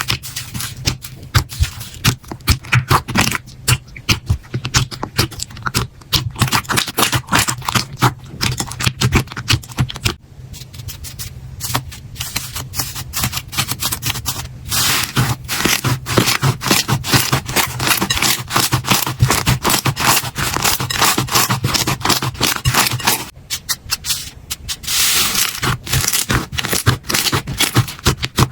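Slime being worked by hand: a dense run of crackling clicks and pops, with a short lull about ten seconds in and another near the end.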